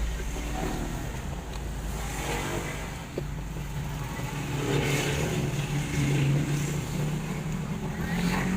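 A motor vehicle engine running past, its pitch drifting up and down over several seconds. There is a single sharp click about three seconds in.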